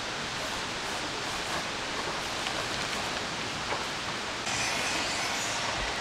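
Fabric of a one-touch pop-up tent rustling as it is folded and packed, over a steady rushing hiss. About four and a half seconds in, a louder, brighter swish as the storage bag is pulled down over the folded tent.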